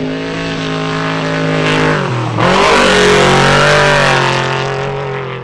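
Trophy Truck race engine running hard at high revs. About two seconds in, its pitch dips sharply and climbs back, and it then runs louder.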